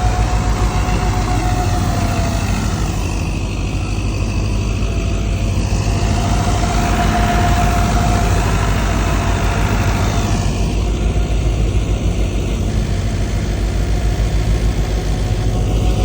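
Tractor-driven wheat thresher running: a loud, steady mechanical drone with a constant whining tone over it.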